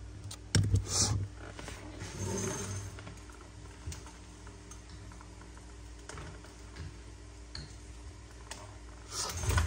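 Metal Zippo lighters clicking and knocking as they are handled and set down on a hard surface, with a cluster of sharp clicks about a second in and faint handling after.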